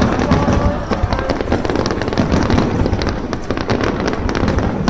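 Fireworks barrage: shells bursting in quick succession, with dense crackling over a continuous low rumble.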